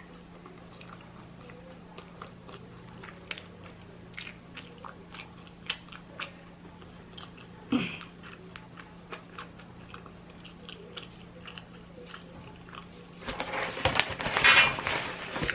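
Close-up mouth sounds of a person eating a fried chicken sandwich: biting and chewing with many small wet clicks, and a louder crunchy stretch near the end.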